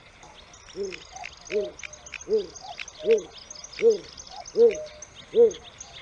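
A bird's low hooting call: one arched, rise-and-fall note repeated about every three-quarters of a second, starting about a second in and growing louder. High-pitched chirps of small birds sound behind it.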